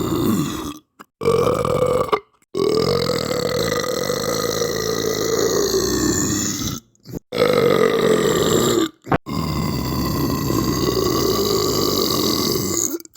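A string of long, deep, rasping belches, about five in a row, each one to four seconds long. The longest runs about four seconds through the middle. Each breaks off abruptly into silence before the next begins.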